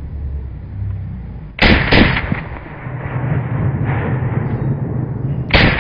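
Colt M16A1 rifle firing 5.56 mm rounds on full auto: a quick two-shot burst about a second and a half in, then a longer rapid burst that starts near the end.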